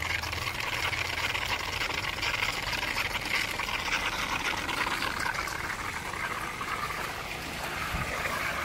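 Water gushing steadily out of an irrigation pipe and running over the ground, a constant rushing hiss.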